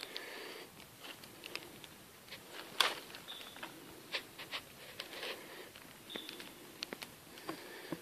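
Footsteps crunching and rustling through dry leaf litter on a dirt forest trail, with irregular clicks and crackles. A short high call repeats every few seconds.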